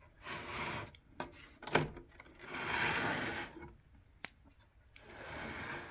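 Scraping and rubbing as the back cover of a 1929 Continental portable typewriter is worked loose and lifted off, in three stretches, with a few sharp clicks in between.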